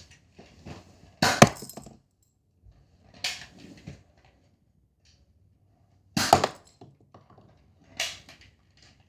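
Nerf blaster being worked and fired: four sharp clacks a couple of seconds apart, the loudest about a second in and about six seconds in.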